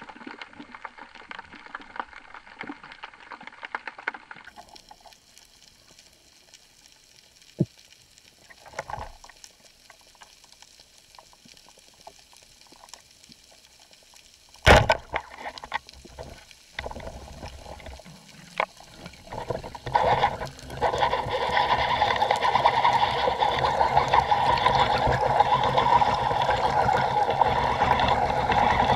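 Underwater sound through an action-camera housing: faint crackle and scattered small clicks, one sharp loud click about halfway through, then from about two-thirds in a steady rushing of water and bubbles.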